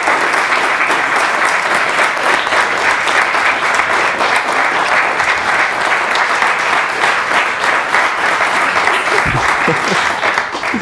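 A roomful of wedding guests applauding: loud, dense, sustained clapping that dies away near the end.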